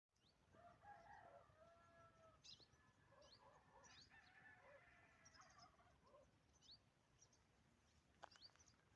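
Faint bird calls: short, high chirps repeating throughout over lower, drawn-out calls with several bending pitches that fade out about two-thirds of the way in.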